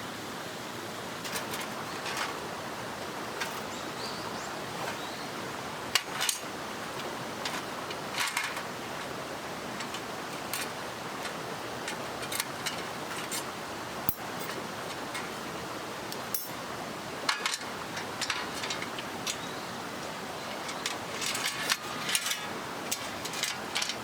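Steady rushing of a mountain stream, with scattered sharp clicks and knocks over it.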